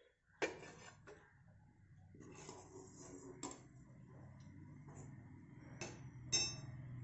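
Stainless-steel wire skimmer clinking against the kadai and plate as fried chicken balls are lifted out of hot oil: about five sharp metallic clinks, the last one ringing, with faint sizzling of the oil in between and a low steady hum underneath.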